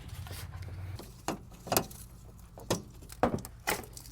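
About five sharp plastic clicks and clacks, irregularly spaced, as the radiator fan module's electrical connectors and hose clips are unclipped by hand, over a low hum that stops about a second in.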